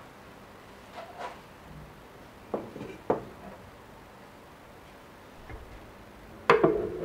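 Light clicks and knocks of a hard 3D-printed plastic frame being handled, then a louder knock with a brief ringing tail near the end as it is set down on a table.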